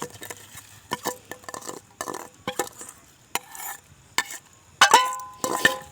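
A metal spoon stirring and scraping inside a cooking pot, with scattered knocks against the pot. About five seconds in there is a sharp clang that rings briefly.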